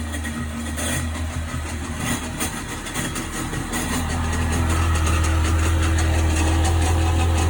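1998 Sea-Doo GS 720's two-stroke twin engine running at a steady, low speed, getting a little louder about four seconds in. Somewhere in its running is a strange noise that the owner cannot identify and suspects may come from the engine or the jet pump.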